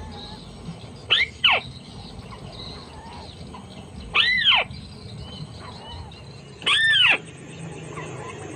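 White-browed crake calls: short loud nasal notes that arch up and slide down in pitch, about 1, 4 and 7 seconds in, the first a quick pair, repeated at an even spacing of a little under three seconds. A steady high insect-like whine and hiss run underneath.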